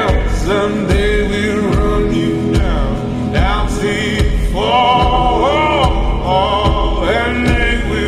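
Background music: a song with a singing voice in drawn-out, gliding lines over a steady low beat.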